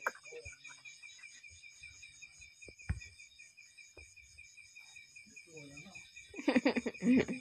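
Night insects chirping in a steady, evenly pulsing chorus, with a soft thump about three seconds in. About six seconds in comes a short, louder burst of wavering vocal sounds lasting about a second.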